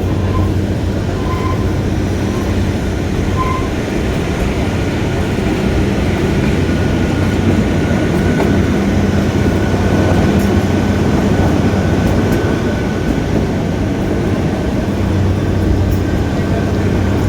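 Kalka–Shimla narrow-gauge toy train running, a steady rumble of wheels on the track with a low hum throughout. A faint high whine comes in through the middle.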